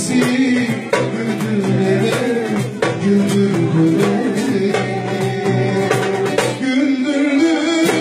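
Turkish song music: a melody on plucked string instruments over regular percussion strokes, at a steady loud level.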